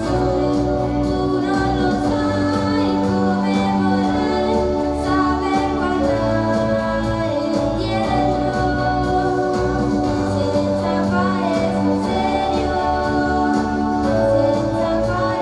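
A young girl singing an Italian pop song into a handheld microphone over live instrumental accompaniment with a steady sustained chord underneath.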